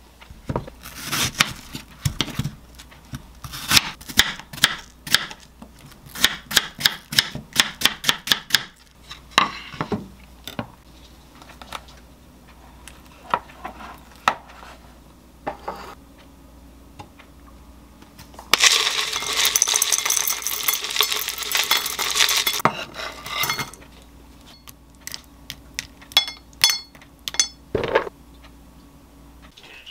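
Kitchen knife cutting an apple on a wooden board in a quick run of sharp knocks, then scattered knocks of utensils and dishes. A steady rustling hiss lasts a few seconds midway, and near the end come a few light ringing clinks on an enamel bowl.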